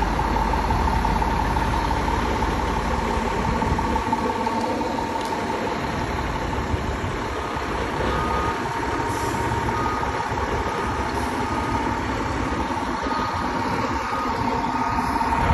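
A vehicle engine running steadily, its deep rumble easing about four seconds in, under a constant high hum. From about seven seconds in, short faint beeps repeat roughly once a second.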